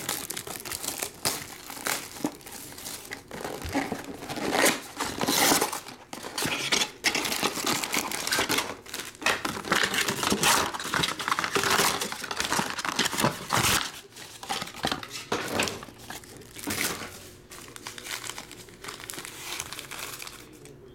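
Foil trading-card packs crinkling and rustling as they are tipped out of a cardboard box and gathered into a stack by hand, with irregular scrapes throughout.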